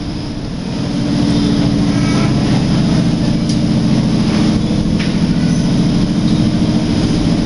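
Mud Island monorail car running: a steady low rumbling drone that gets louder about a second in as the car gets under way.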